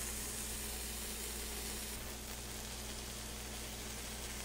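Shredded Oaxaca cheese sizzling softly as it melts on a hot electric griddle, the hiss easing a little about two seconds in, over a steady low hum.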